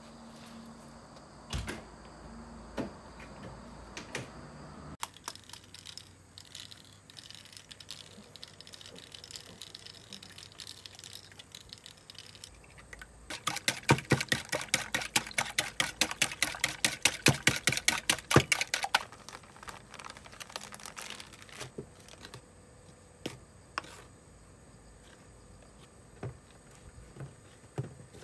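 Wire whisk beating eggs in a bowl: a rapid run of clicks, several strokes a second, for about five seconds in the middle, with fainter scattered knocks and scraping around it.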